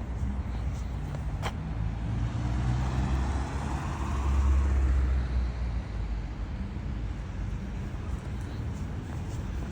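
Road traffic noise: a steady low rumble of passing cars, swelling as a vehicle goes by about four to five seconds in.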